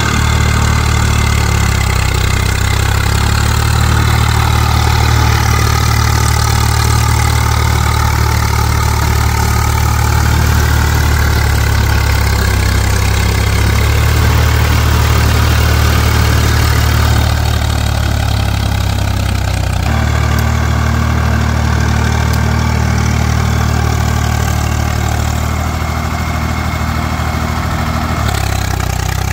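Swaraj 744 FE tractor's three-cylinder diesel engine running steadily under load while it pulls a rotary tiller through flooded paddy mud. The engine note shifts abruptly a few times.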